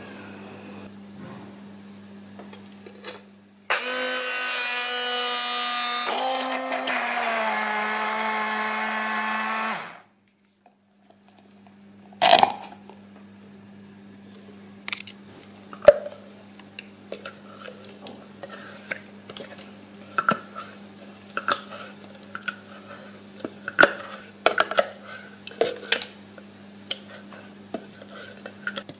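Hand blender running for about six seconds, pureeing chunks of green apple in its tall plastic beaker, its pitch dropping slightly partway through. It cuts off abruptly; then come a sharp knock and a string of light, irregular clicks and taps.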